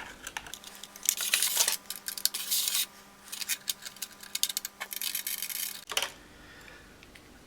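Small clicks, taps and scrapes of hands and a tool working inside an opened Futaba T8J radio transmitter, taking off the throttle ratchet plate. The sounds come in several short clusters, and a faint steady hum underneath cuts off about six seconds in.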